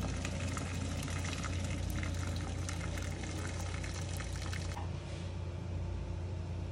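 Hot water poured from a metal vessel into a steel pot over a lamb shoulder: a steady splashing pour that eases off about five seconds in, over a low steady hum.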